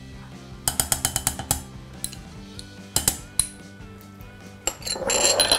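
Background music, with a quick run of small clinks about a second in as a teaspoon taps against a small glass bowl, a few single clicks after, and a short, louder scraping noise near the end.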